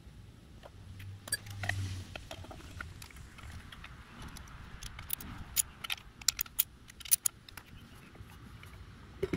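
Light metallic clinks and taps of a small socket and bolts being handled and set into a valve cover, several sharp clinks coming close together about halfway through.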